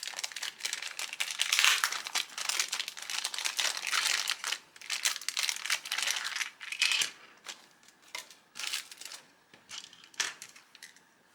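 Plastic packaging crinkling and rustling as small figure parts are unwrapped: dense and continuous for most of the first seven seconds, then a few short separate crinkles.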